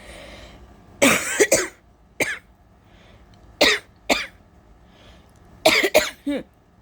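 A woman coughing in short fits: a breathy intake, then a couple of coughs, a single one, another pair, and a quick run of three near the end.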